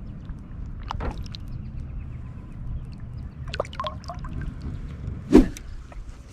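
Steady low hum of a fishing boat with scattered small knocks and clicks, and one loud thump about five seconds in.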